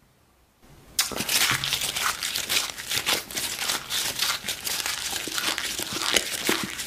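Loud, dense crunching and crinkling of a pizza slice sandwiched in cardboard being bitten and chewed, starting suddenly about a second in after a moment of near silence.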